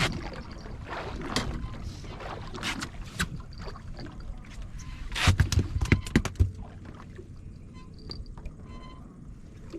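Knocks and thumps on a fishing boat's hull and deck, with a cluster of heavy thumps about halfway through, then quieter.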